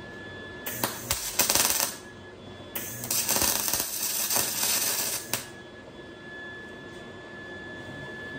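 MIG welding arc from a Lincoln 100SG spool gun laying a bead on aluminum tube: two bursts of sputtering crackle, the first about a second long and the second about two and a half seconds.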